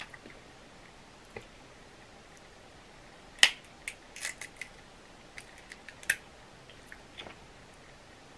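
Crab leg shells cracked and snapped apart by hand: a few sharp cracks, the loudest about three and a half seconds in, with scattered smaller snaps after it.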